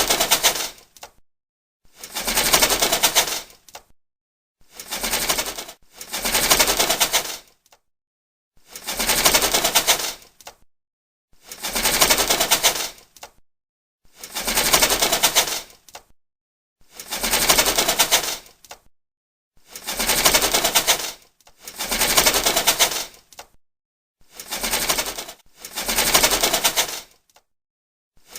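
Window roller shutter being raised and lowered, its slats rattling in a fast clatter. About a dozen separate runs of roughly a second and a half to two seconds each, with short pauses between them, some in quick pairs.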